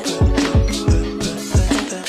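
Background music with a steady bass-drum beat over held chords.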